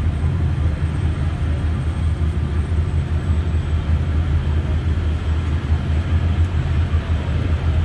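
Ferry's engines running as it pulls away, a steady low drone, with the churn of propeller wash.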